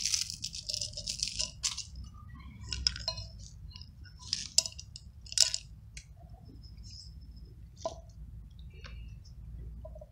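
A cylindrical container of dry cat food shaken in short rattling bursts, a cluster in the first two seconds and then single shakes every second or two.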